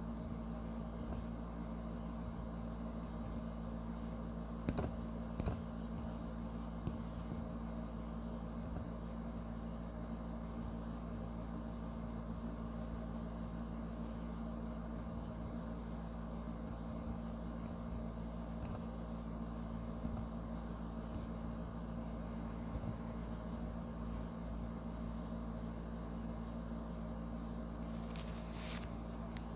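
Steady low hum of room background noise, with two soft clicks about five seconds in and a brief hiss near the end.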